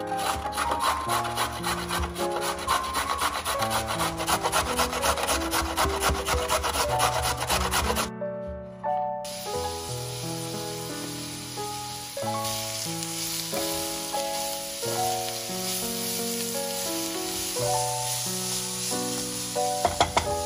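A carrot being grated on the coarse side of a stainless-steel box grater: quick rasping strokes repeated for about eight seconds. After a brief break, grated carrot and sliced potatoes sizzle in oil in a frying pan. Soft piano background music plays throughout.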